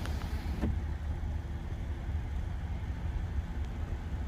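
Vehicle engine idling: a steady low hum.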